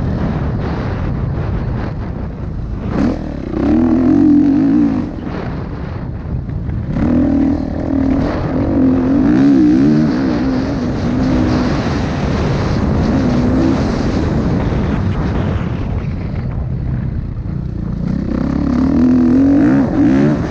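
Dirt bike engine under way on a motocross track, the throttle opened and closed repeatedly so the revs rise and fall in several bursts, with wind rushing over the microphone.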